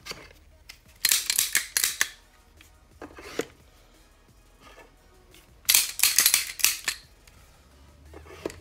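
Handling noise of pistols being picked up and set back down on their display stands: clusters of sharp metal and plastic clicks and clacks about a second in and again around six seconds, with a single click between.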